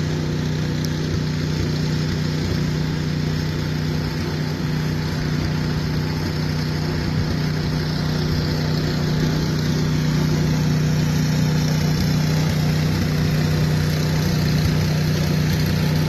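Ariens snowblower's single-cylinder engine running steadily at a constant speed, with a steady low hum. It grows slightly louder about halfway through.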